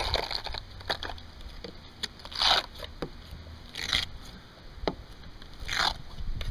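Hand scraper blade (a 5-in-1 painter's tool) scraping and prying rotted, water-damaged wood and styrofoam core out of a trailer bunk panel: four short scraping strokes about a second and a half apart, with small ticks between.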